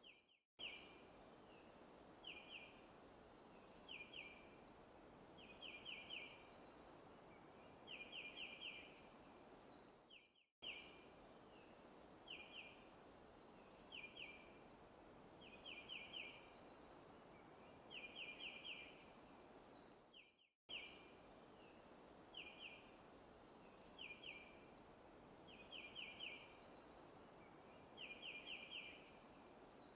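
Looped forest ambience: a bird calls in short clusters of one to four high chirps every second or two over a soft steady background hiss. The loop repeats every ten seconds, cutting briefly to silence each time it restarts, about half a second in, and again near ten and twenty seconds.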